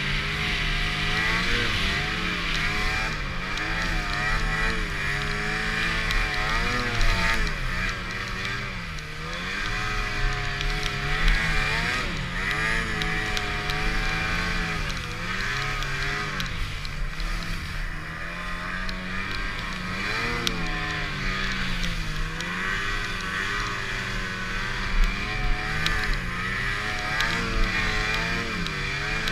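Snowmobile engine running hard through deep powder, its pitch rising and falling again and again as the throttle is worked, over a steady rushing hiss. A few brief louder knocks stand out.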